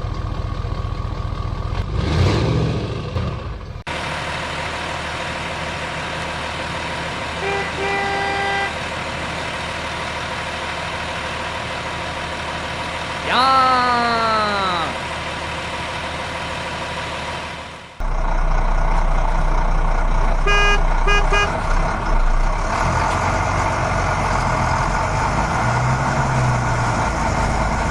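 Vehicle engine running steadily, with short horn toots twice and a falling whistle-like tone in the middle; the background changes abruptly twice.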